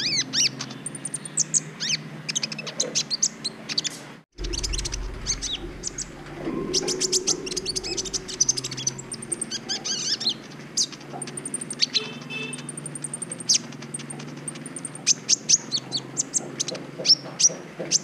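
Kolibri ninja sunbird singing a fast, high twittering song of sharp chirps and short trills, with a brief break about four seconds in.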